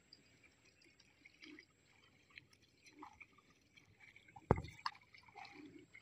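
Faint dripping and trickling of water with small scattered splashes, as from shallow water and wet mud. A single sharp knock comes about four and a half seconds in.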